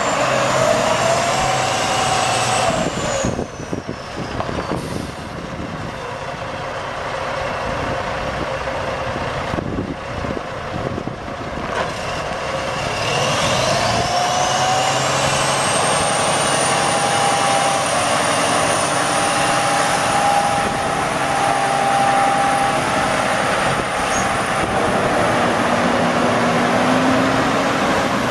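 Cummins ISX 14.9-litre straight-six diesel of a semi truck running. A high whine fades out about three seconds in; about 13 seconds in another whine rises over a couple of seconds and then holds steady.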